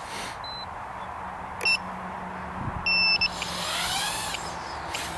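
Two high electronic beeps: a short one, then a longer one about a second later, over a steady low hum.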